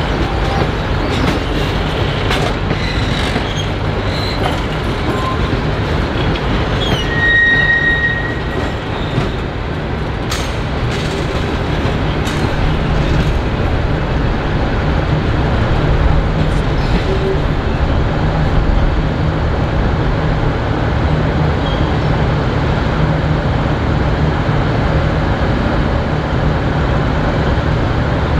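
Diesel-hauled passenger train moving through the station, a loud steady rumble, with a brief high wheel squeal about seven seconds in and a few sharp clicks a little later.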